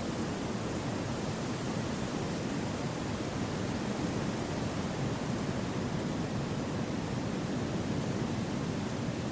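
Gentle wind through forest trees: an even, low rushing noise that holds steady without gusts.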